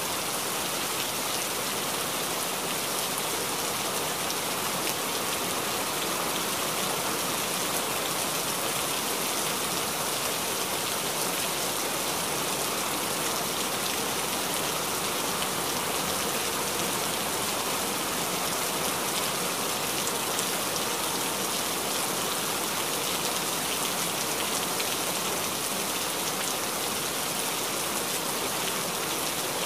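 Steady, even hiss like falling rain.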